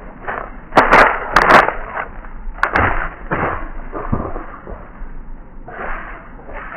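Irregular rustling and crunching in dry leaf litter, like animals moving quickly over the ground, with a few sharp snaps like twigs breaking. The rustling is loudest about a second in.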